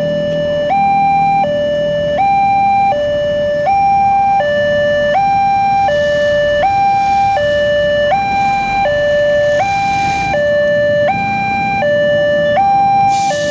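Railway level-crossing warning alarm sounding an electronic two-tone hi-lo signal, switching between a higher and a lower tone about every three-quarters of a second. Road traffic runs underneath.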